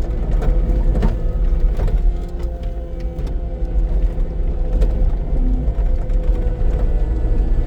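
Cat 259D compact track loader's diesel engine running steadily under load, with several sharp clanks and knocks in the first two seconds as its attachment rakes through burn-pile debris.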